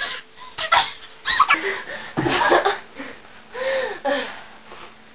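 Young women laughing and squealing in short, irregular bursts, with breathy gasps between them.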